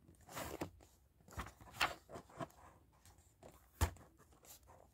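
Paper pages of a graphic novel being leafed through by hand: faint rustles and soft flicks, with one sharper snap of a page near the end.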